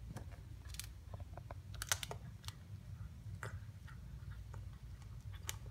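An animal chewing a freshly killed rabbit: irregular sharp cracks and clicks of teeth on bone and flesh, loudest about two seconds in.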